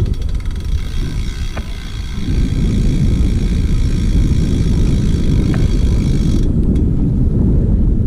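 Wind buffeting the microphone of a bike-mounted camera on a moving road bike, a dense low rumble throughout. Over it runs a steady high hiss from the rolling bike, which cuts off about six and a half seconds in, and two faint clicks.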